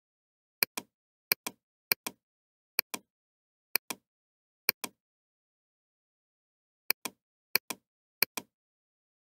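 Computer mouse button clicking, each click a sharp press followed by a softer release. There are nine clicks at uneven intervals, with a pause of about two seconds in the middle.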